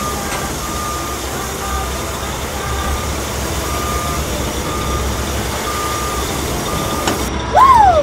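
Cartoon dump-truck sound effects as the truck tips its load: a short beep repeating about once a second over a steady low engine rumble and a hiss of pouring dirt. Near the end comes a loud swooping tone that rises and then falls.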